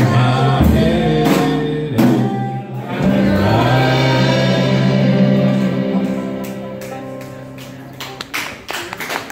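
A live string band of fiddle, banjo, upright bass, acoustic guitar and drums playing with a woman singing, closing the song on a long held chord that fades away. Scattered clapping starts about a second before the end.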